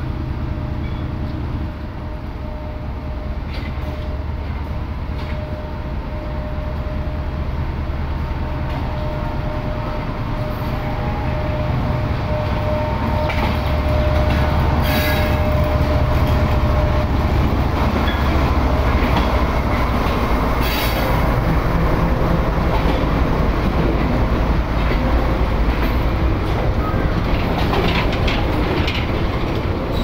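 Pakistan Railways GEU-40 diesel-electric locomotive running through under power at the head of a long freight train. Its engine drone grows louder as it comes closer and passes about halfway through. Near the end, the freight wagons follow with repeated clacks of wheels over the rail joints.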